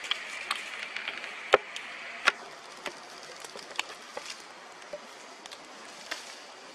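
Dry leaf litter crackling underfoot, with scattered sharp clicks and two louder snaps about one and a half and two and a half seconds in. A faint high hiss fades out in the first couple of seconds.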